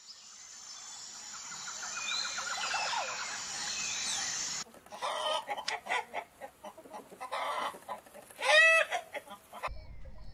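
Forest ambience with bird chirps and a trill, fading in over the first few seconds. About four and a half seconds in it changes abruptly to domestic chickens clucking in short, quick notes, with one loud repeated call from the flock about eight and a half seconds in.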